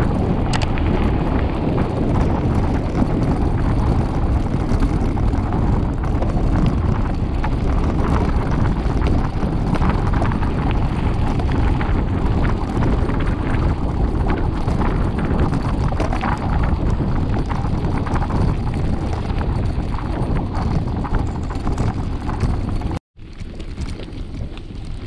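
Wind rushing over the microphone of a camera riding on a mountain bike, with the tyres crunching over a gravel road and small rattles from the bike. Near the end it drops out for an instant and comes back quieter.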